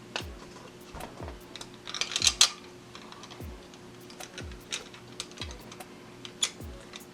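Small clicks, taps and a brief rattle from handling the plastic parts of a Nerf Rival Takedown blaster during a spring and plunger mod, loudest about two seconds in. Soft background music with a steady beat plays underneath.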